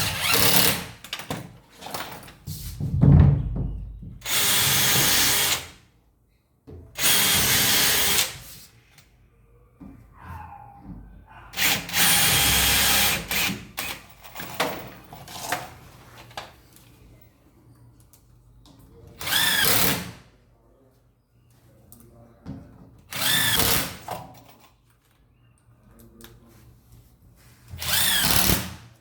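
Power drill/driver run in about seven short bursts of one to two seconds each, with small knocks in the pauses between them.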